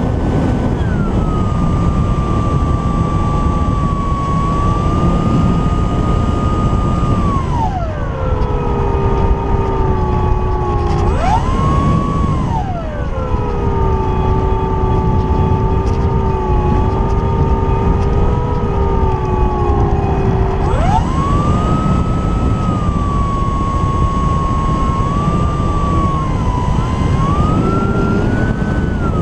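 Electric motor and propeller of an Apprentice S 15e RC plane whining in flight, with wind rushing over the camera strapped under the fuselage. The whine drops in pitch as the throttle comes back about a quarter of the way in, jumps up and falls again a few seconds later, and climbs back up about two-thirds of the way through.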